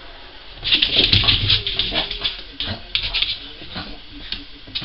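Cavalier King Charles Spaniel reverse sneezing: a rapid run of short, noisy gasping inhalations starting about a second in and tailing off toward the end, set off by overexcitement.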